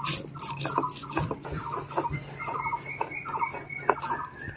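Stone roller rocked back and forth on a flat grinding stone (sil-nora), crushing mustard seeds, poppy seeds and dried chillies into a paste: a gritty scraping with sharp stone clicks, about two strokes a second.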